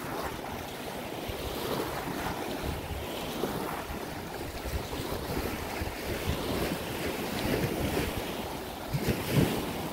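Small waves from a passing boat's wake washing up on a sandy shore, with wind on the microphone.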